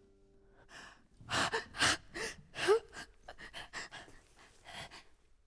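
A woman's breath coming in a quick series of sharp, audible gasps, about a dozen short breaths, one or two catching in her voice like a sob.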